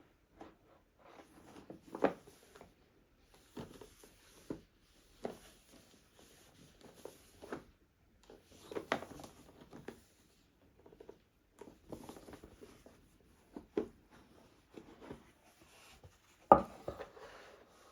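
A board-game box and its cards being handled: irregular rubbing, rustling and light taps of cardboard, with sharper knocks about two seconds in and near the end.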